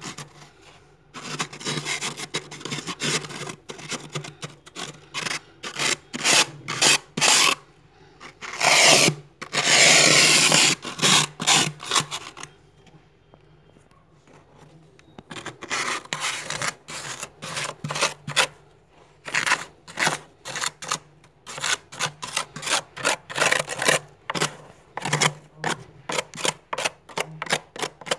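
A plastic card scraping thick, soft frost off the inside wall of a freezer in quick rasping strokes. A longer, louder scrape comes about nine seconds in, then a pause of a few seconds, then rapid short strokes again, several a second.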